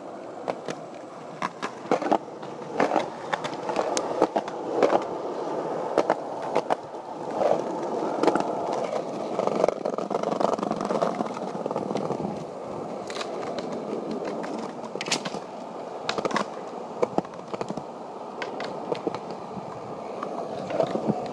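Skateboard wheels rolling over concrete pavement: a continuous rough rumble, with frequent sharp clacks as the wheels cross seams and cracks in the slabs.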